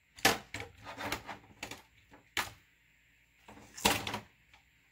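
Hard clicks and knocks of RC truck chassis parts being handled and fitted by hand: irregular taps through the first couple of seconds, a quiet stretch, then a louder cluster of knocks near the end.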